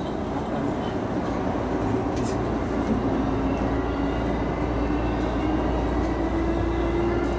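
Electric commuter train running along the line, with steady wheel and running noise and a low motor hum that rises slightly in pitch over the second half.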